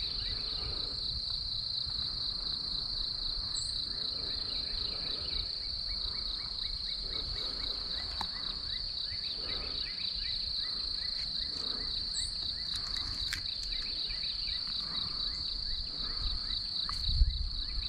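Steady, high-pitched chorus of insects trilling without a break, over a low rumble of wind on the microphone. A few low bumps of handling come near the end.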